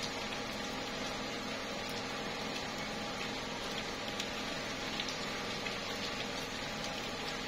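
Slow, light rain falling steadily on tree leaves, an even patter with scattered single drops ticking out above it.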